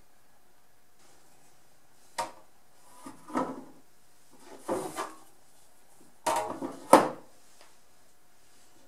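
An 1880s Richardson Bros. No. 7 rip saw being set down and turned over on a wooden workbench: a few separate knocks and clatters of the steel blade and wooden handle against the bench top, the loudest near the end.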